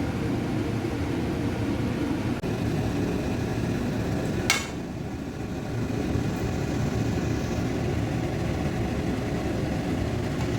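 Pot steaming on the stove, a steady rushing noise, with one sharp clink about four and a half seconds in.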